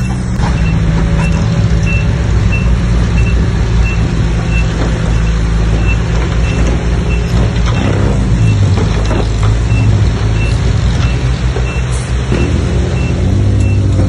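Bulldozer diesel engine running under load, its pitch shifting with the work a little past halfway and again near the end, with a reversing alarm beeping steadily, about one and a half beeps a second.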